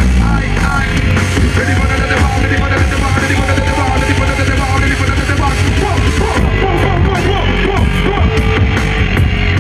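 Loud live band music through a concert PA, with a heavy, constant bass line.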